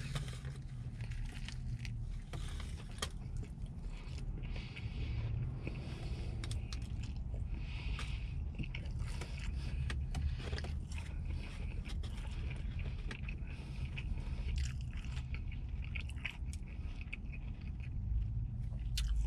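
A person biting into and chewing a fried chicken tender sandwich with heavily breaded, crunchy chicken: irregular crunches and small clicks over a steady low rumble.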